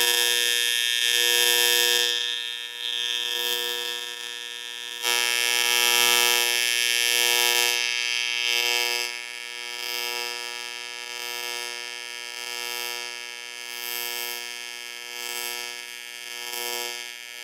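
AC TIG welding arc on aluminium from a Miller Dynasty welder, buzzing. The current is pulsed by hand with the foot pedal between 120 amps and a low setting, so the buzz swells and falls: long swells at first, then about once a second.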